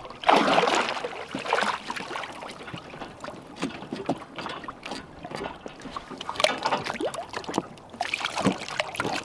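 Water splashing and dripping around the bow, with irregular knocks and scrapes as a hacksaw lashed to a boat hook is worked at a fouled anchor rope. The splashing comes in bursts, loudest just after the start.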